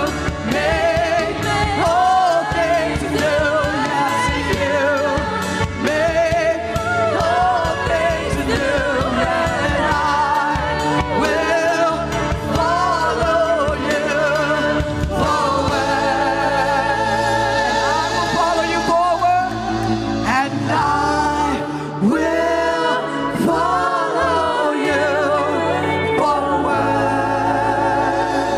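Gospel music: a choir and lead singers singing over a live band, with held sustained chords from about a quarter of the way through.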